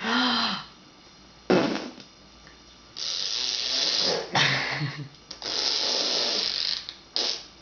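Fart noises blown with the lips (raspberries), made again on request: short buzzes near the start and about a second and a half in, two long buzzes lasting over a second each, and a short one near the end.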